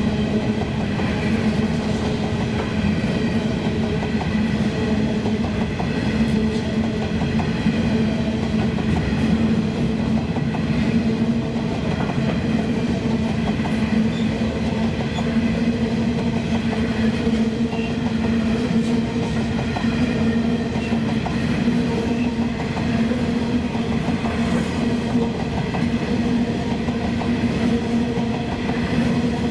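Coal hopper wagons of a long freight train rolling steadily past close by, steel wheels running on the rails with a dense stream of clicks over a constant rumble.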